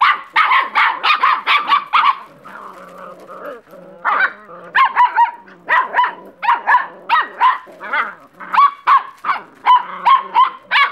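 Puppies yapping in short, high-pitched barks: a quick run of yaps at the start, a brief lull, then steady yapping at about two or three barks a second.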